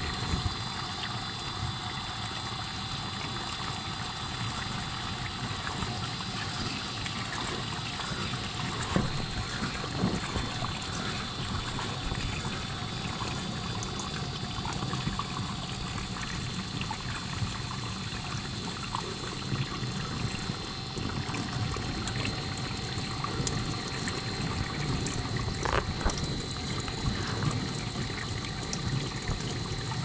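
Whirlpool ADG 2020 FD dishwasher running, with water trickling steadily inside it over a low hum. The machine has a leaking motor diverter valve, the fault behind its F6 E4 error.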